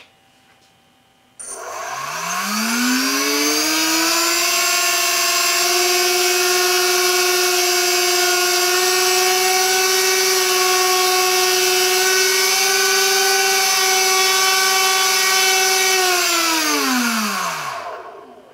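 DYS 1806 2300kv brushless motor spinning a Gemfan 6x4.5 propeller. It starts about a second and a half in with a whine that rises in pitch over two seconds, holds steady for about twelve seconds, then falls in pitch and winds down to a stop near the end.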